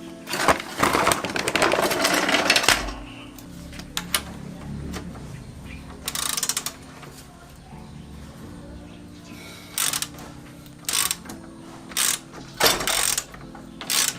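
Hand tools working on metal motorcycle parts: bursts of rapid clicking and metallic clinks, the longest run about half a second in and shorter ones spread through the rest.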